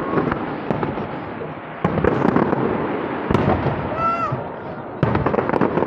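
Aerial fireworks bursting in a display: three sharp bangs about a second and a half apart, each followed by a dense crackle.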